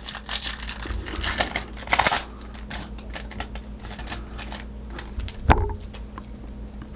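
Glossy trading cards being handled and flipped through by hand: an irregular run of light clicks and rustles.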